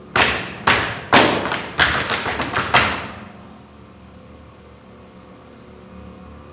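A run of about ten sharp thumps and taps over roughly three seconds, coming faster in the middle, each with a short ringing tail; after that only a faint steady background.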